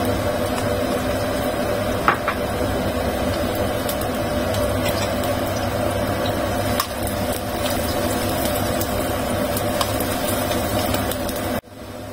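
Pieces of tempeh deep-frying in hot oil in a wok: a steady sizzle with scattered small pops and crackles. Near the end it cuts off suddenly and gives way to a quieter frying sizzle.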